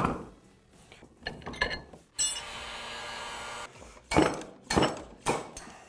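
Metal clinks as the bearing removal tool is set in the dirt bike's front wheel hub, a steady whir for about a second and a half, then three sharp metal strikes about half a second apart: the tool's rod being hammered to drive the wheel bearing out of the heated hub.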